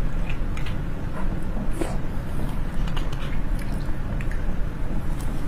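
Eating sounds of braised beef bone marrow: soft wet chewing and squishing with small irregular clicks, over a steady low hum.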